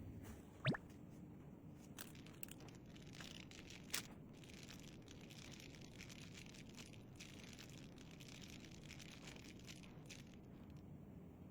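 Faint handling sounds over quiet room tone: a light click near the start, another about four seconds in, then soft rustling for several seconds.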